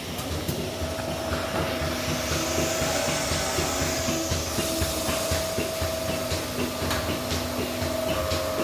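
Automatic milking machine running: a steady mechanical hum with a swell of air hiss and scattered clicks and knocks.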